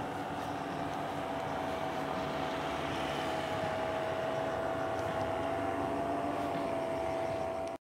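Paramotor (powered paraglider) engine droning steadily in the distance, its pitch sinking slightly over the seconds. It cuts off suddenly near the end.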